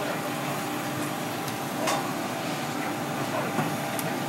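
Kitchen scissors snipping through porcupinefish skin and flesh, a few short sharp clicks of the blades, the clearest about two seconds in and near the end, over a steady background hum.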